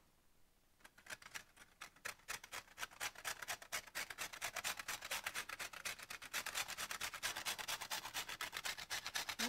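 A crisp butter cookie rasped back and forth on a flat stainless steel hand grater, being ground into crumbs. The quick, even scraping strokes come several a second, starting about a second in.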